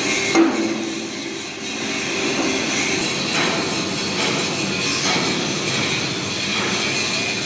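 CO2 (MIG) welding arc laying a bead on a butt joint: a steady crackling buzz, with one sharp louder pop about half a second in.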